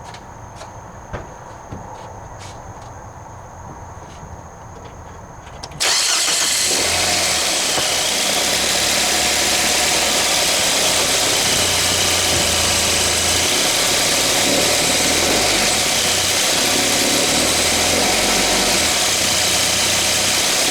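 Quiet surroundings with a few light ticks, then, about six seconds in, a sudden switch to the loud running of a Nissan NV200's MR20DE four-cylinder petrol engine, its low note shifting up and down with the throttle. The engine is running with a newly fitted drive belt that is meant to cure the belt-tensioner knock mistaken for piston slap.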